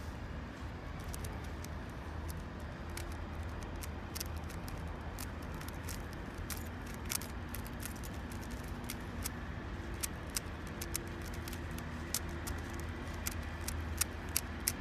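Small 3 cm plastic keychain Rubik's cube being twisted by hand, its layers clicking sharply and irregularly, with a few louder clicks near the end. A steady low rumble runs underneath.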